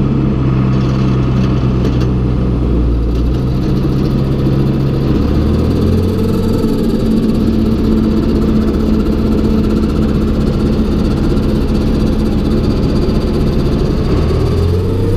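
Tractor engine running steadily, powering a hay grinder on a test run after its drive chain sprockets were realigned. Its low tones shift about five seconds in, and a tone rises near the end.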